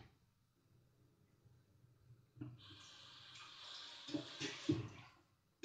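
Near silence, then about two and a half seconds in a soft, steady hiss of running water starts, with a few light knocks. It stops shortly before the end.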